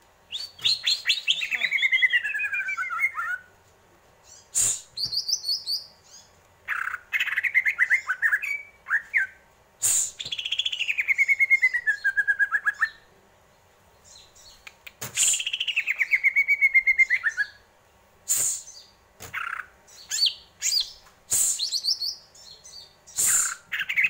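Cucak ijo (green leafbird) singing: three long falling trills, with shorter chirps and sharp clicking notes between them and pauses between phrases.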